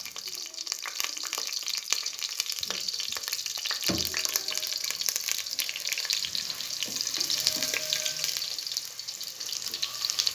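Sliced onions sizzling and crackling in hot mustard oil, stirred with a wooden spoon in the second half. There is a dull knock about four seconds in.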